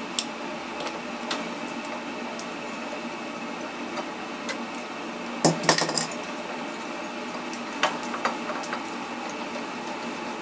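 Small metallic clicks and clinks as the thermostat rod and element fittings are handled and seated in the flange of an electric water heater, loudest in a short cluster about five and a half seconds in. A steady background hum runs underneath.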